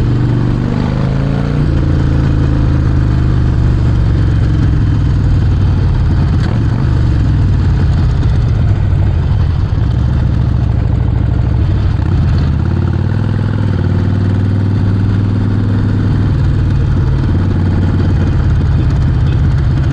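Harley-Davidson Sportster 48's 1200 cc V-twin running through a Vance & Hines exhaust while being ridden. The engine note steps up and down a few times with the throttle.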